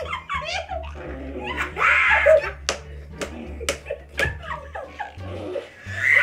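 A group of young women laughing, with shrieks of laughter and several sharp hand smacks in the middle.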